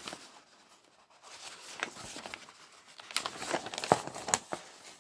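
Paper instruction sheet being unfolded and opened out by hand, a run of crinkling and rustling snaps that is loudest in the second half.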